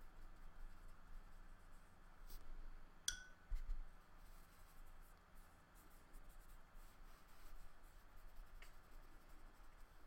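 Faint strokes of a watercolour paintbrush on paper, brushing paint over oil pastel. About three seconds in comes a sharp tap with a brief ring, followed by a low thump.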